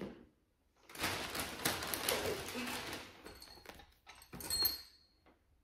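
Kitchen cabinets and their contents being handled: a knock at the start, about two seconds of rustling and scraping, then a few clinks with a brief high ringing near the end.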